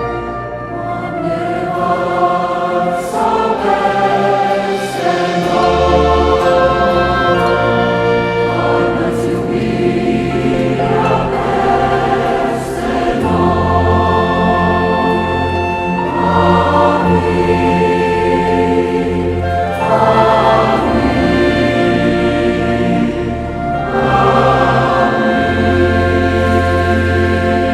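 Choir singing sustained, wordless-sounding chords over an orchestral accompaniment, the harmony shifting every few seconds, with a deep bass coming in about halfway through.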